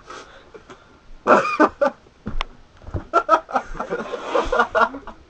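Muffled vocal noises from a person with a mouth stuffed full of marshmallows: short bursts about a second in, then a longer run from about three to five seconds, with a sharp click in between.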